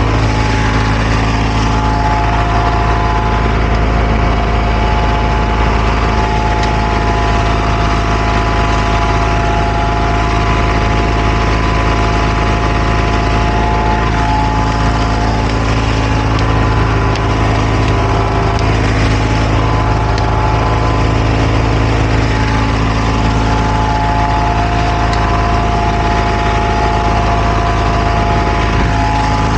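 Heavy diesel engine of asphalt paving equipment running steadily, a constant drone with a steady whine held above it.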